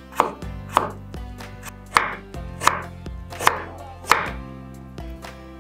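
Kitchen knife chopping a carrot on a wooden cutting board: six sharp knocks of the blade on the board, about one every half second to second, stopping about four seconds in.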